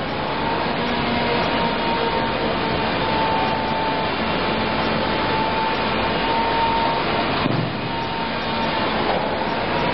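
Semi-automatic corrugated carton gluer running: a steady machine noise with a high whine that drifts slightly in pitch, and a brief knock about seven and a half seconds in.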